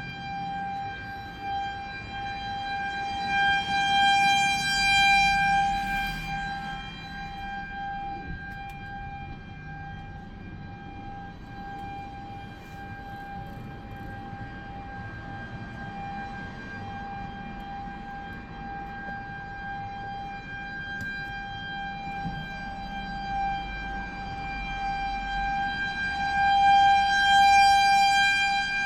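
Outdoor warning siren sounding a steady, single-pitch tone during a siren test, swelling louder and fading twice, once a few seconds in and again near the end.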